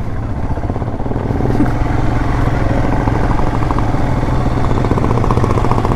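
Royal Enfield Himalayan's single-cylinder engine running steadily while the motorcycle rides along a dirt track, with an even, fast pulsing beat.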